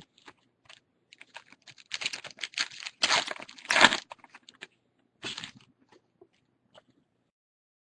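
A foil trading-card pack being torn open and crinkled, with cards clicking as they are handled. The crinkling is thickest and loudest about three to four seconds in.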